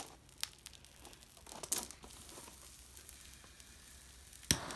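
Fire burning with faint, irregular crackling and sizzling, and one sharp click near the end.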